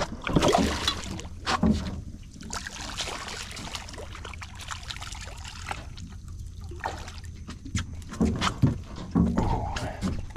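Water splashing and trickling as a hooked fish is brought to the side of a boat, with a run of knocks and handling noises in the boat near the end.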